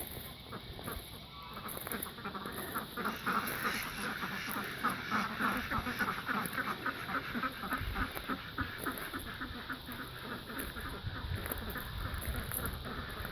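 A flock of farm ducks and geese calling, many short calls overlapping, swelling about two to three seconds in and then keeping up steadily.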